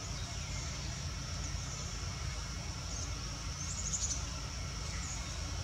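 Forest ambience: a steady high-pitched insect drone over a low rumble, with a few brief high chirps, the clearest about four seconds in.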